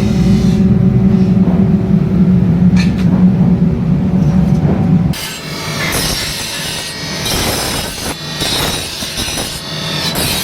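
A machine running with a steady low hum, then, about five seconds in, an abrupt switch to a rasping, scraping noise of a tool working.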